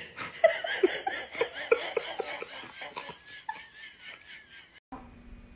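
A person laughing in quick, repeated bursts. Near the end it cuts off abruptly to a quieter, steady low hum.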